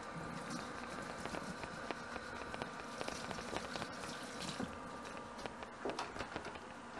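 Water running from a kitchen tap onto gloved hands rinsing in a stainless steel sink, with a few light knocks and clicks near the end.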